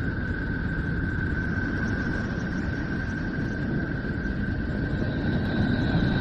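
Space audio presented as the sound of Neptune: electromagnetic signals converted into sound. It is a steady deep hiss with one constant high tone running over it, swelling slightly near the end.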